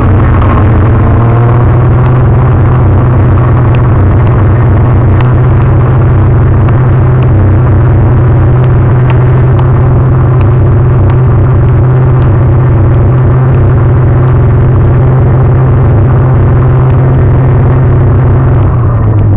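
Snowmobile engine running steadily and loud at close range while the sled pulls a trail-grooming drag; its pitch drops near the end.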